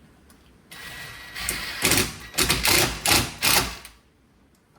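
Cordless Ryobi drill-driver driving a screw into a wooden window frame without a pilot hole, running in several short surges after a first steady whine; the wood splits a little.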